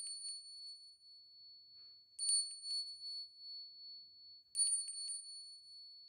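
A small bell rung three times, about two seconds apart. Each ring is a quick shake of a few strokes, then one high, clear tone that rings out and fades.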